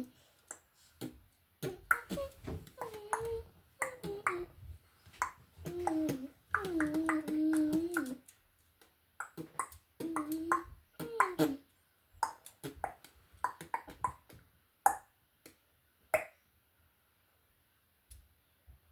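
A child humming and making wordless vocal sounds, mixed with many quick, sharp clicks; after about twelve seconds only a few isolated clicks remain.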